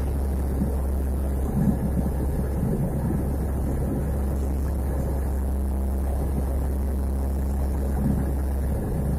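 C-130 Hercules four-engine turboprop droning steadily, heard from inside the cargo hold, with a deep constant rumble and a steady hum.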